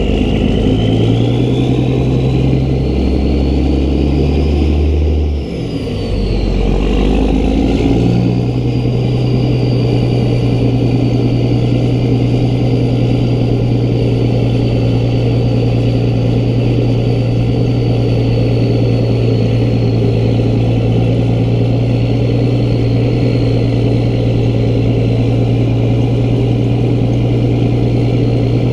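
Peterbilt 388 semi truck's diesel engine pulling a loaded lowboy trailer down the road, with steady road and wind noise. Over the first eight seconds the engine note shifts as it pulls through the gears, dipping briefly about five and a half seconds in, with a high whine rising and falling. After that it settles into a steady cruising drone.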